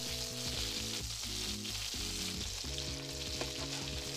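Butter-garlic sauce sizzling in a frying pan around whole lobsters while a metal spoon bastes them. Sustained background-music notes, changing every half second or so, run underneath.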